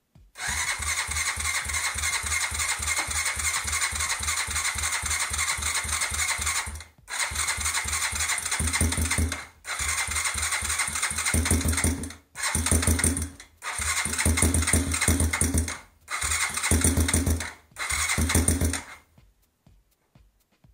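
Freshly rebuilt Suzuki DR200 single-cylinder four-stroke engine being cranked by its electric starter in seven separate bursts: one long crank of about six seconds, then shorter ones, each with an even beat of compression strokes. On this first start after the top-end rebuild, the engine does not catch and keep running.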